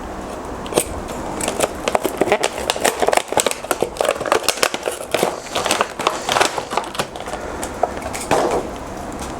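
Crackling, rustling and clicking of an action figure's cardboard and plastic packaging being opened by hand. The crackle is busiest through the middle of the stretch and thins to a few clicks near the end.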